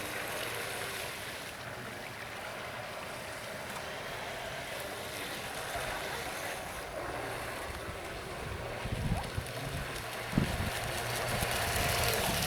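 Vintage SHG Shadow RC speedboat's brushless motor running out on the water, a faint wavering whine over steady wind and water noise. From about nine seconds in, low buffeting on the microphone grows louder.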